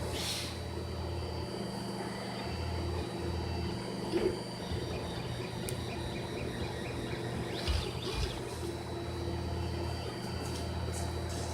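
3D printer printing in PETG: the stepper motors hum in short steps that change pitch as the head moves, over a steady fan whine, with a few light knocks about four and eight seconds in.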